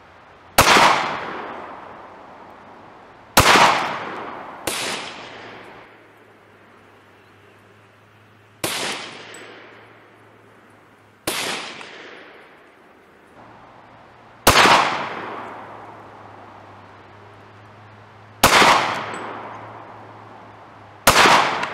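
Glock 30 pistol firing .45 Auto 230-grain Speer Gold Dot short-barrel hollow points, eight single shots a few seconds apart. Each crack is followed by an echo that dies away over about a second.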